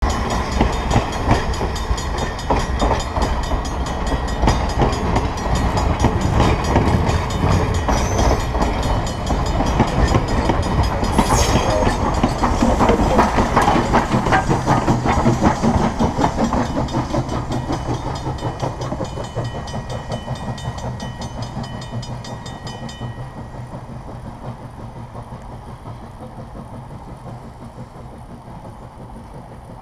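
Steam locomotive No. 40 and its passenger coaches passing close by, wheels clicking rhythmically over the rail joints. The locomotive goes by about halfway through, and the sound then fades steadily as the train moves away.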